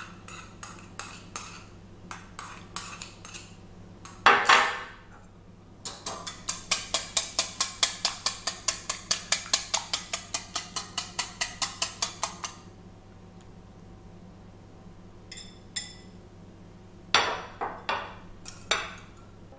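Two eggs being beaten with salt in a bowl, the utensil clicking against the bowl: scattered strokes, a louder clatter about four seconds in, then a fast steady run of beating at about five or six strokes a second for several seconds, and a few last strokes near the end.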